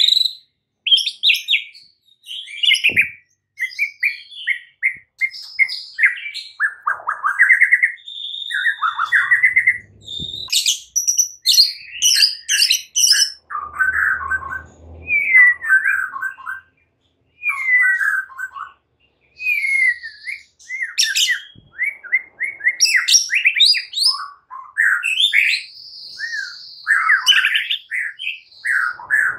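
White-rumped shama singing a varied song of quick chirps, rapid trills and gliding whistled phrases, with short pauses between the phrases.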